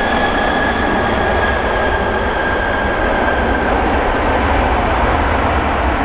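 Boeing 737 jet engines running loud during the landing rollout just after touchdown, a steady roar with a high whine that fades out about four seconds in.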